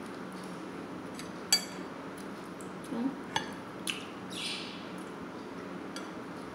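Metal serving spoon clinking against a ceramic dish. There is one sharp, ringing clink about a second and a half in, then a few lighter clinks and a short scrape around four seconds in.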